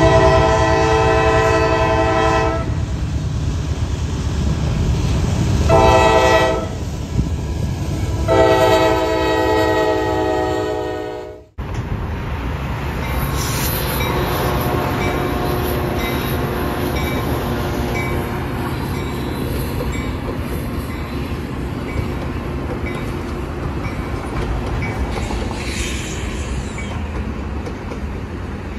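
Diesel freight locomotive sounding its air horn in three blasts, long, short, long, over the rumble of its engine and the train. Then a Metra F40PH passenger diesel locomotive's engine running with a steady low rumble.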